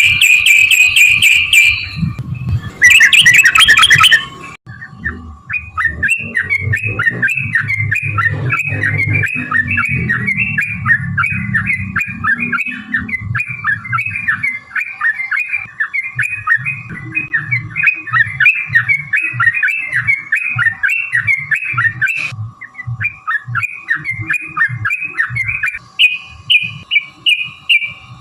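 Yellow-vented bulbul (trucukan) singing: a harsh, loud burst of calls at the start, then a long run of quick, chattering repeated notes that breaks off briefly and starts again near the end.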